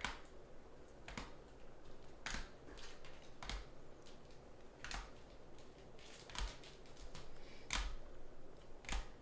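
Hard plastic magnetic card holders clacking against each other as they are shuffled through a stack one at a time, a sharp click about once a second.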